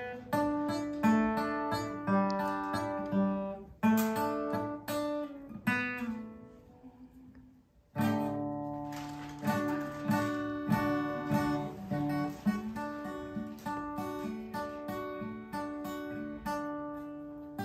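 Acoustic guitar played with picked notes and chords, a slow melody that dies away to near silence about six seconds in, then starts again with a loud chord about eight seconds in and carries on.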